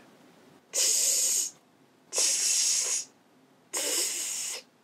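A person hissing a sustained "s" three times, each about a second long with short gaps, the third a little softer, with a wooden popsicle stick held between the front teeth. This is a speech-therapy exercise for an interdental S: the stick only keeps the tongue from pushing between the teeth, so the tongue stays behind the upper front teeth.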